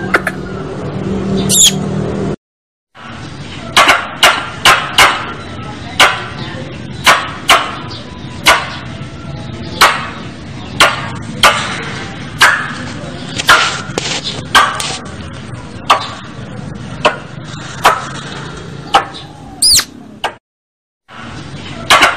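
Squirrel calling: sharp chipping calls repeated irregularly, about one or two a second, with a rising whistle near the end. The sound cuts out completely twice for about half a second.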